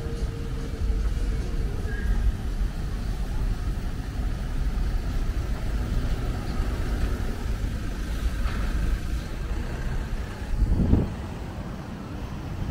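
Street noise with motor traffic running by: a steady low rumble, with a brief louder rush near the end.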